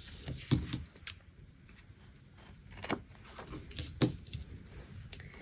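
Quiet handling of paper: a cut floral sticker pressed into place on a planner page, and the page moved on the table. Scattered light taps and rustles, with the clearest taps about half a second, one, three and four seconds in.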